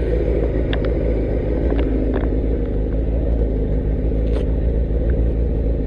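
Motorcycle engine running steadily under a heavy low rumble of wind or road noise, as when riding, with a few faint clicks.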